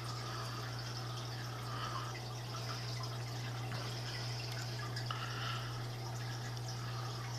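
Water trickling and bubbling in a home aquarium, coming and going in small surges, over a steady low hum.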